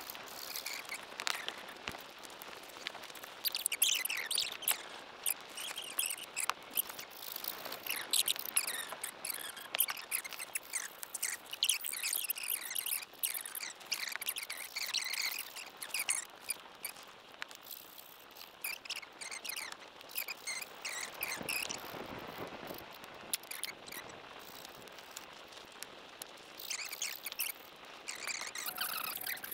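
Outdoor animal calls: many short, high chirps and whistles, rising and falling in pitch and overlapping one another.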